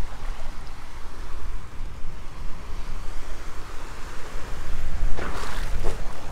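Small waves breaking and washing through shallow water over rocks, with wind rumbling on the phone's microphone. A brief louder burst of splashing comes about five seconds in.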